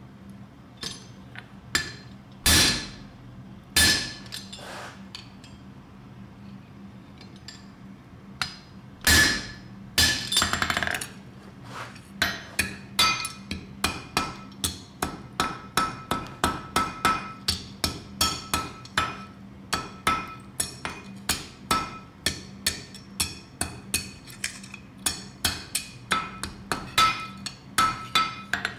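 Blacksmith's hammer forging iron by hand. A few single heavy blows come first, then a steady run of quicker blows, about two a second, each with a short metallic ring.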